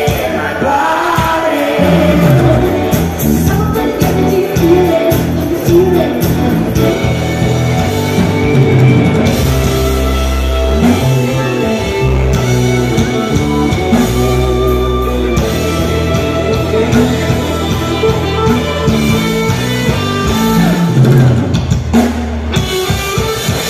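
Live rock band playing loudly: electric guitars and drum kit with a singer on microphone.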